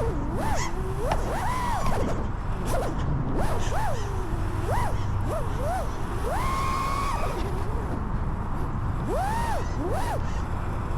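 FPV racing quadcopter's brushless motors whining, the pitch swooping up and down in quick arches as the throttle is punched and cut through flips and rolls. About six seconds in, one steady higher whine holds for about a second.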